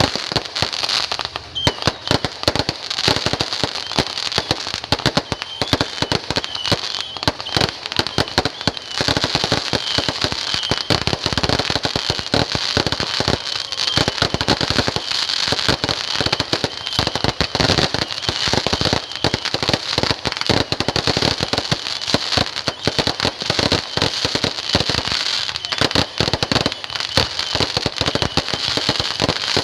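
Fireworks going off in a rapid, unbroken barrage of pops and bangs with continuous crackling.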